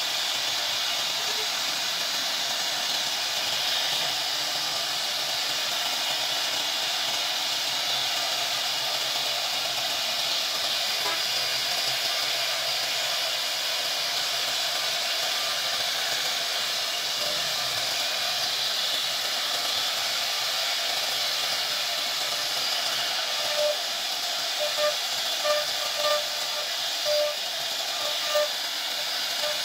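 CNC router spindle carving a relief pattern into a wooden panel: the steady, hissing whine of the spinning bit cutting the wood. A few brief tones sound near the end.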